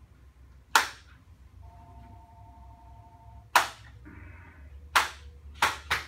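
Sharp, loud clicks from a chiropractic neck adjustment, five of them at uneven gaps, the later ones in quicker succession. A faint steady two-note tone sounds for about two seconds between the first and second clicks.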